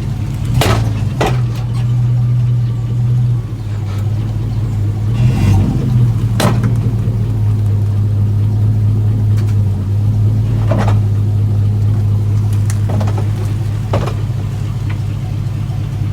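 Pickup truck engine running steadily, its pitch shifting slightly a couple of times, with several sharp clicks or knocks scattered through.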